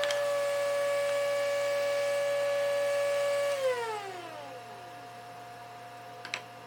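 DeWalt router fitted with a large 45-degree chamfer bit, running at full speed with a steady high whine, then switched off about three and a half seconds in and spinning down, its pitch falling away. A fainter steady tone carries on after it, and a sharp click comes near the end.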